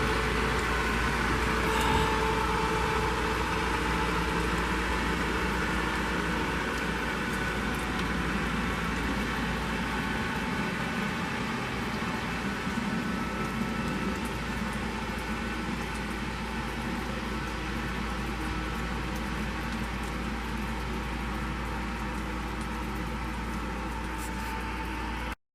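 A steady mechanical hum with a rushing hiss, unchanging throughout and cut off suddenly at the very end.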